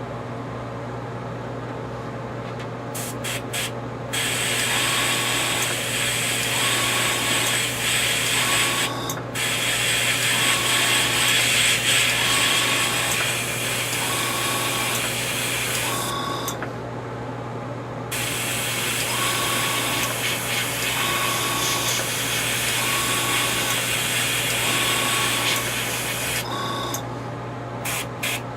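Airbrush spraying paint in long hissing passes, with a few short bursts at the start and end and a pause of a couple of seconds about two-thirds through. A steady low hum runs underneath.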